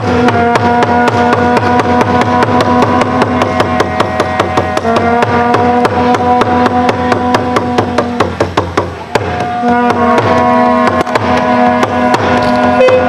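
Music with fast, steady drum strokes under a melody of long held notes. The melody drops away briefly about eight or nine seconds in, then returns.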